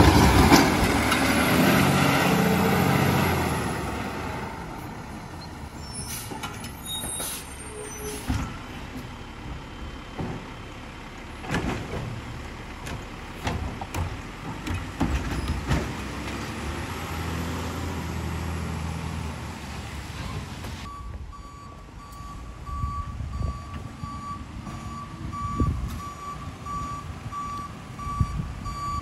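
Automated side-loader garbage truck: the engine revs loudly as the lift arm and hydraulics work, then settles and revs up again about two thirds of the way through as the truck moves off. From about 21 s in, its reversing alarm beeps at an even pace as it backs up.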